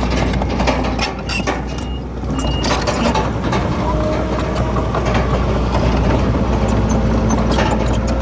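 Heavy diesel earthmoving machinery running steadily, with repeated metallic clanks and knocks over the engine sound; the level dips briefly a second or two in.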